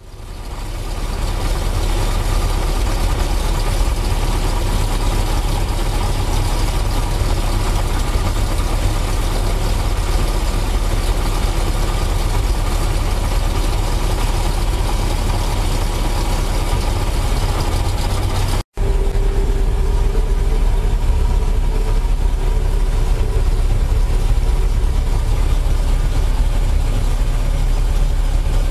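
1660cc Ford Crossflow four-cylinder pushrod engine running steadily on a dynamometer test bed, fading in at the start, with a momentary break about two-thirds of the way through.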